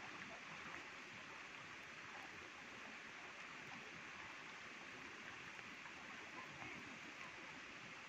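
Faint, steady rush of flowing floodwater.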